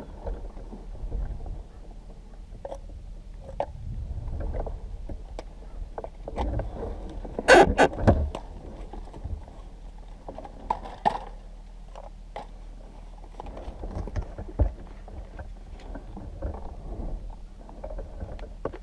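Rustling, clicks and knocks of a suit and its gear rubbing close to the microphone, over a steady low hum, with a loud cluster of clicks about seven and a half seconds in.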